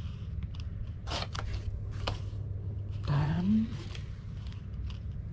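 Fishing line being drawn off the spool of a Shimano Plays 3000 electric reel by hand, heard as a few short scratchy draws, over a steady low hum. A brief rising voice-like sound comes about three seconds in.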